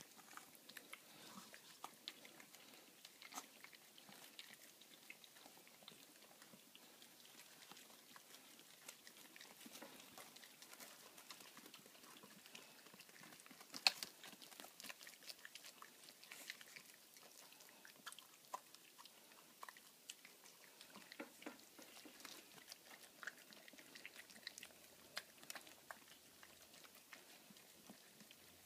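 Scoshihuahua puppies and their mother eating together from a plastic bowl: faint chewing with many small clicks and taps, one louder click about halfway through.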